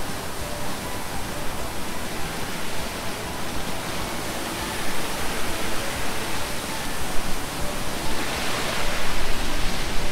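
Steady rushing, hissing noise of a tunnel car wash at work, its spinning brushes and water spray scrubbing a car, swelling for a moment near the end.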